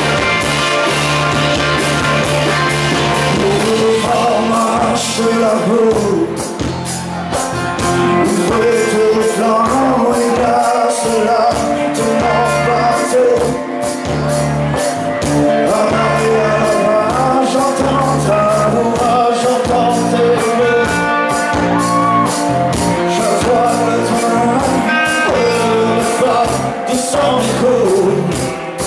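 Live rock band playing: acoustic and electric guitars over a steady drum beat, with a wavering lead melody on top.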